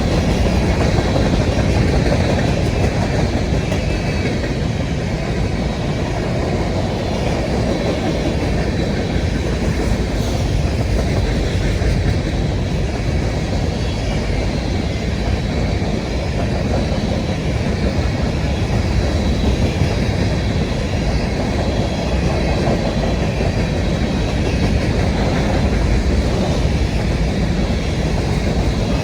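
Freight train cars rolling past on the rails, a loud, steady clatter of wheels over the track.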